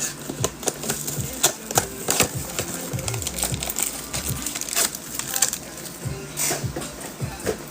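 A box of football trading cards being opened by hand: sharp clicks, crinkles and tearing of the wrapper and packs, over background music with a low bass line.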